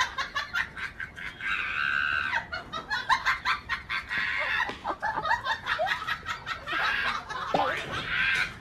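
Chickens squawking and clucking in quick, repeated calls, agitated at a dog they are confronting.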